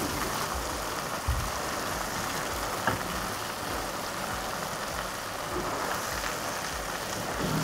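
Kefta meatballs in tomato sauce sizzling and simmering in a frying pan, a steady hiss, with two light knocks of a spatula against the pan.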